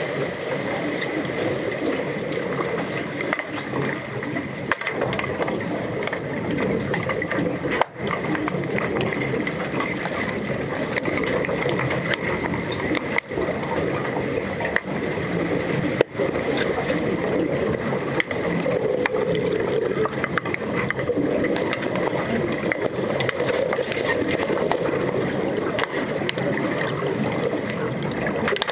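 Underwater pool noise picked up by a submerged camera during play: a steady rushing, gurgling hiss with a thin steady high tone, and scattered sharp clicks and knocks.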